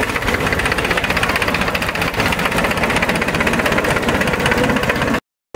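Escorts Powertrac 435 tractor's diesel engine running steadily as the tractor drives slowly, a rhythmic diesel clatter. The sound cuts out abruptly for a moment just before the end.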